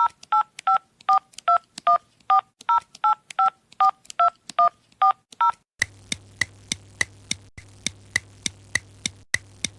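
Telephone keypad dialing tones: a quick run of about fourteen two-tone beeps at a steady pace, roughly three a second. About five and a half seconds in, they give way to a steady low hum with regular ticks at about the same rate.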